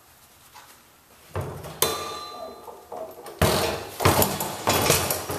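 Plastic drum compost tumbler being rolled over by hand on a hand truck: a series of hollow knocks and clunks, beginning after a quiet second or so and loudest in the second half, with a brief ringing ping from its metal hinge and latch hardware.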